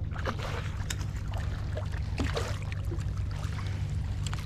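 Water lapping and splashing against a kayak hull in many small, irregular plops and drips, over a steady low rumble.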